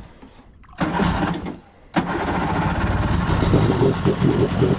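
Small boat motor being started: it fires for under a second and dies, then catches about two seconds in and keeps running steadily, churning the water at the stern.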